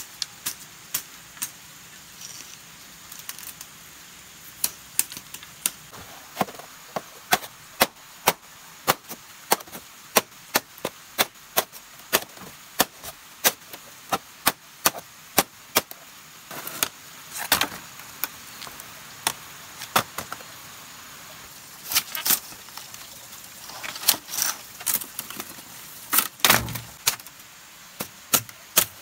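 Bamboo being chopped: a long run of sharp strokes, about two a second, with some heavier, louder blows in the second half.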